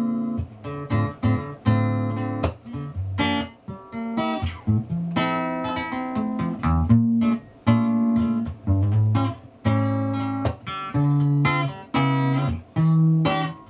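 Solo acoustic guitar playing an instrumental passage of plucked notes and chords over ringing bass notes, in short phrases with brief pauses between them.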